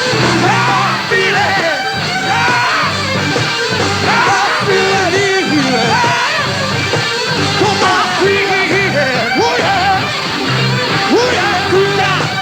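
Rock music with singing: gliding, bending vocal lines over a steady bass line and band accompaniment.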